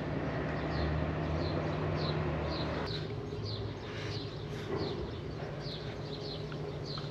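A bird chirping, short falling notes about twice a second, over a steady low hum that eases a little about three seconds in.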